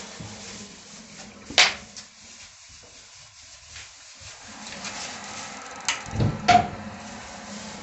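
A sharp click about one and a half seconds in, then a knock and two more clicks near six seconds, over a low steady hum.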